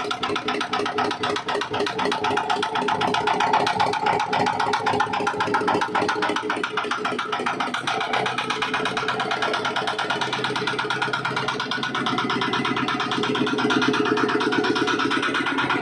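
Dongfeng R175 single-cylinder diesel engine running at a steady speed, its rapid even firing pulses continuous, with guitar music playing over it.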